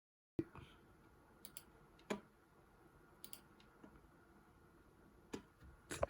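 A handful of sharp, isolated clicks, about six over several seconds, over a faint steady hum.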